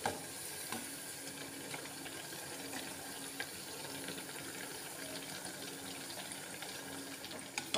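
Battered, cornflake-coated bread slices deep-frying in hot oil: a steady sizzle with a scatter of small crackles and a faint low hum underneath.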